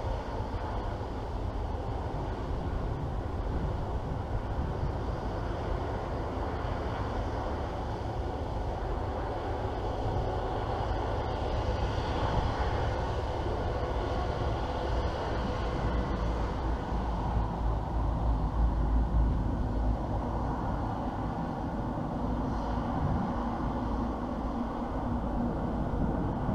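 Jet airliner's engines slowly starting up, heard from afar as a steady rumble.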